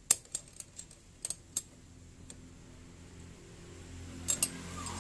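Sharp metallic clicks and taps of hand tools working the valve adjuster on a Yamaha Mio's cylinder head: a quick cluster of about seven clicks in the first second and a half, then two more close together near the end.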